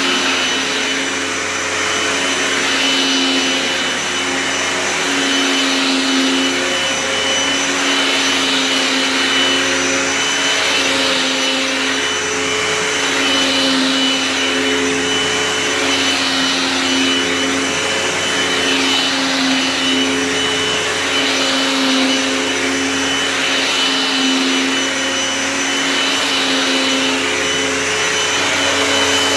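Dirt Devil Swivel Glide Vision upright vacuum running with a steady motor whine. The sound swells and eases in a regular cycle about every two and a half seconds.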